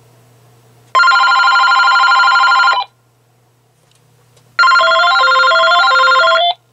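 AT&T EL52419 DECT 6.0 cordless phone ringing, two rings of about two seconds each. The first ring is a fast electronic warble. In the second ring a stepping melody plays over the warble.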